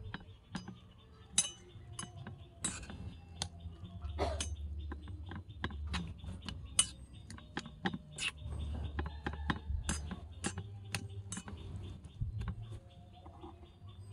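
Small metal spoon clinking and scraping against a miniature metal wok while stir-frying greens and egg: irregular sharp clinks, several a second, over a low rumble that swells at times.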